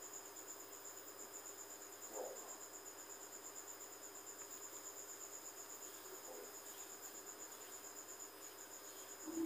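A cricket chirping faintly in a fast, even, high-pitched pulse, with a brief soft sound about two seconds in.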